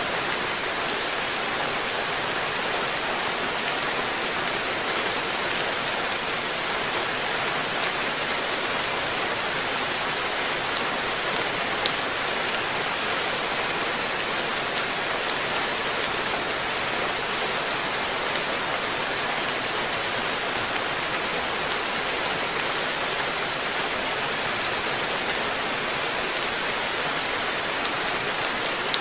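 Steady rain falling on a garden koi pond, an even hiss with a few sharp ticks of single drops landing close by.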